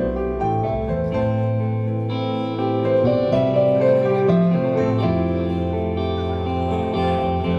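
Live band music played on a stage keyboard over a low bass line, with held chords changing every second or two.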